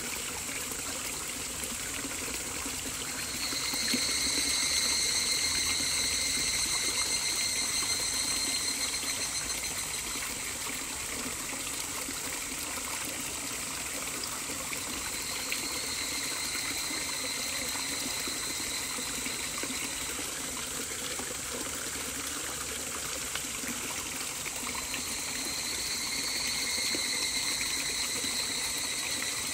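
Steady trickling, running water. A high ringing tone swells and fades over it three times.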